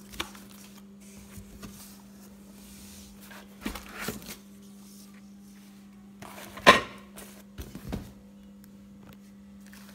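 Cardboard box being opened by hand: flaps pulled back and wrapped items shifted and lifted out, with a few scattered rustles and knocks, the sharpest about two-thirds of the way through. A steady low hum runs underneath.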